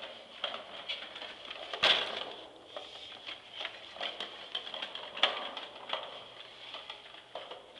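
Plastic baby push walker rattling with irregular clicks and knocks as it is pushed over carpet, with two sharper knocks, about two seconds in and about five seconds in.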